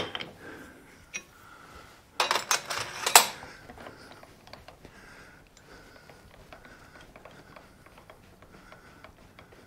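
Steel lathe cutting tool being handled and fitted at the toolpost: a sharp metal click at the start, then a short burst of clinking and clattering about two seconds in, followed by quiet.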